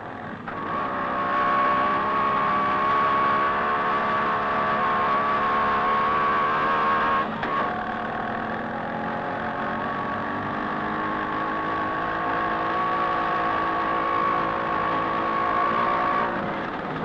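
Small moped engine running steadily at an even pitch as the moped is ridden along the street, with a brief break about seven seconds in.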